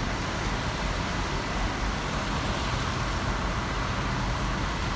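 Tour bus in motion through city traffic: the steady run of its engine with road and traffic noise, an even rumble without sudden events, and a thin steady whine running through it.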